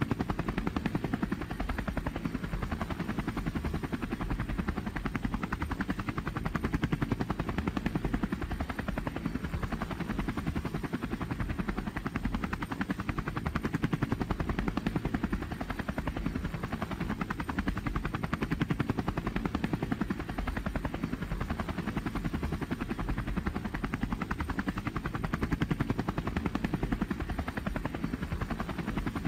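Helicopter in flight, heard from inside the cabin: the steady, rapid beat of the main rotor over the drone of the engine.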